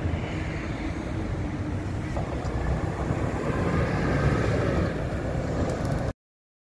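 Single-decker bus driving past, its engine running and growing louder to a peak about four seconds in. The sound cuts off abruptly near the end.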